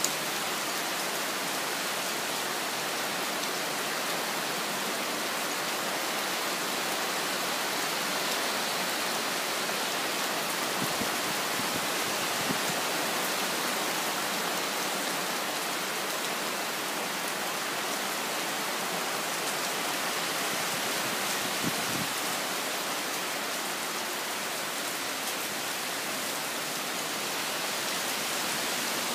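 Steady rain falling, an even hiss without let-up, with a few faint ticks of drops here and there.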